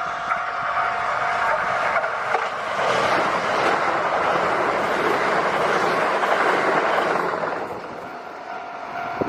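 Japanese level crossing warning bell ringing, then a Kintetsu Nagoya Line electric train passing through the crossing. Its wheel and rail noise builds to a loud steady rush for about five seconds and fades near the end.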